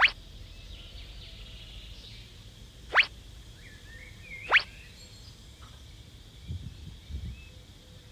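Three quick rising whistle-like swoops, clean single tones sweeping from low to high in a fraction of a second: about a second and a half apart at first, then a gap before the third. Faint bird chirps run underneath, and a couple of low soft thuds come near the end.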